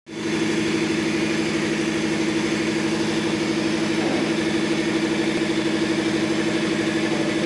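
Maruti 7.5 hp piston air compressor with a 500-litre tank, its electric-motor-driven pump running steadily with a fast, even pulsing beat.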